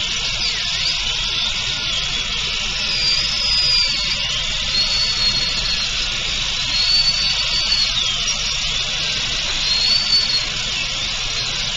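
High-speed dental handpiece with water spray drilling the access opening into the tooth: a steady hiss under a high whine that rises and falls, dipping several times as the bur bears on the tooth.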